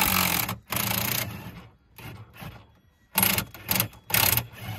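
Power wrench run in several short, rapid-clattering bursts, spinning bolts out.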